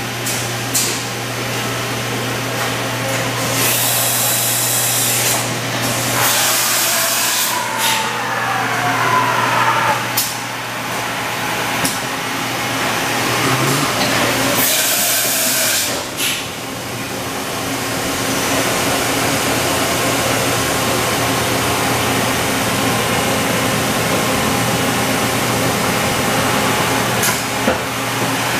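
Powered-up Mori Seiki MH-50 CNC horizontal machining center running, a steady hum and hiss. There are two loud bursts of hissing air, about four seconds in and again about fifteen seconds in, and a whine that falls in pitch between about six and ten seconds in.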